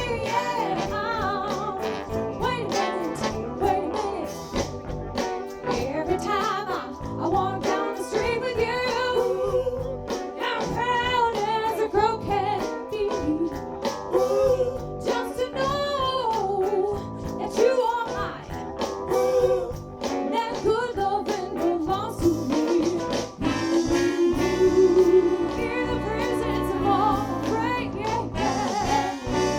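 Live band playing a song with a singer: drums, bass, guitar and keyboard, with wavering lead vocals over them.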